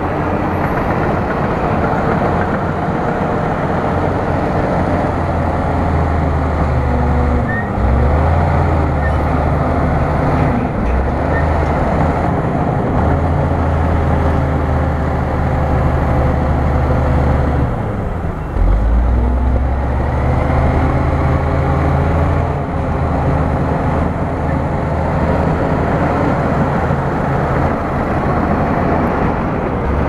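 Bulldozer's diesel engine running hard under load, with a heavy, steady low drone. Twice its pitch dips and then recovers as the engine lugs and picks back up.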